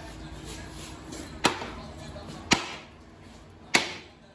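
Three sharp metal strikes about a second apart, each ringing briefly: blows on a small-block Chevy 350 engine.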